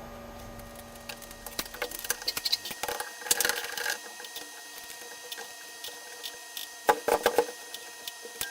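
Light clicks and knocks of small metal lathe parts being handled, the tailstock and its centers, in two bunches about three seconds in and near seven seconds, over a faint steady hum.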